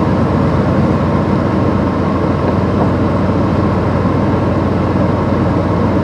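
Truck engine running at low, steady speed, heard from inside the cab as an even, continuous low hum.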